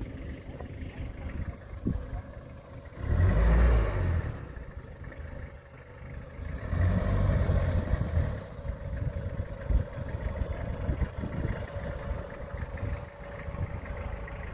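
Toyota Hilux SR5's 2.8 diesel engine running as the pickup crawls over a steep dirt mound off-road, with two loud rushes of sound about three and seven seconds in.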